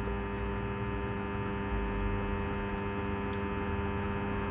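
Steady electrical hum made of several even tones, with a low rumble underneath.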